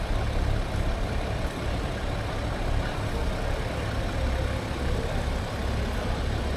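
City-centre street noise: a steady low rumble of road traffic, like a bus or truck engine running, under a general hum.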